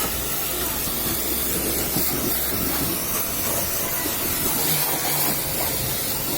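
Water jet spraying steadily with a hiss, as when a vehicle is being washed, with a low hum underneath that drops away about halfway through.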